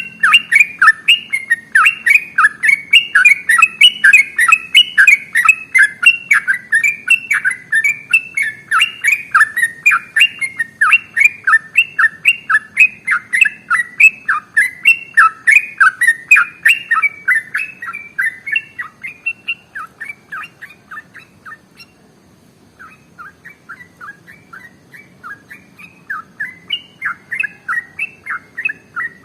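Yellow-vented bulbul (trucukan) singing a long, unbroken run of fast chattering notes, about four a second. The run weakens about two-thirds through, breaks off briefly, then picks up again more softly.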